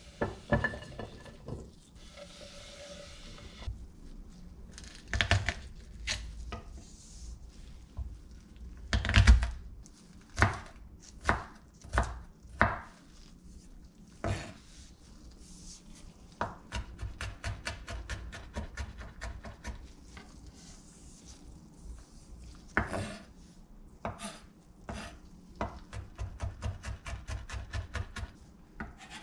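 Chef's knife chopping garlic on a wooden cutting board: single strikes at first, then quick runs of mincing strokes, about five a second. About nine seconds in there is one louder knock.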